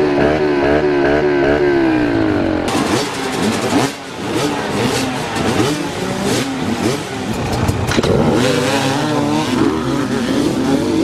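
Several dirt bike engines idling and being revved at once, their pitches rising and falling over one another. The sound changes abruptly about a quarter of the way in, to a busier jumble of engines.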